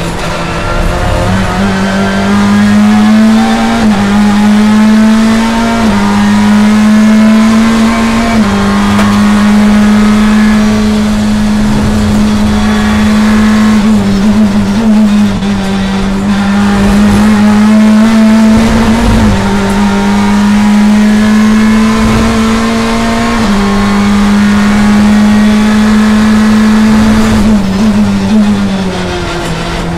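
Chevrolet BTCC touring car's engine heard from inside the cockpit, pulling hard under full throttle. The engine note climbs, then drops back at each quick gear change every few seconds, and eases off near the end.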